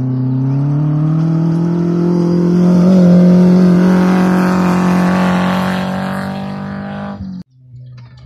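Rally vehicle's engine at high revs on a gravel stage. The engine note climbs in pitch as it accelerates and is loudest about three seconds in. It then holds high and fades, and cuts off suddenly near the end, leaving a faint low hum.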